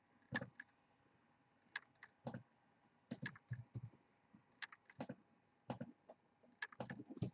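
Faint, irregular clicking of a computer keyboard: short keystrokes, singly and in small clusters, with pauses between.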